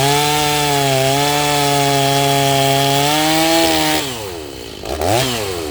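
Stihl MS 390 two-stroke chainsaw, rebuilt with a Hipa kit, held at full throttle for about four seconds while cutting wood. It then drops back toward idle, with one quick blip of the throttle about a second later.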